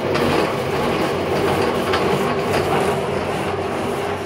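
Homemade electric cement mixer running steadily: an electric motor turns a steel drum through a belt, pulley and a salvaged Multicab differential, giving a continuous mechanical hum and rumble.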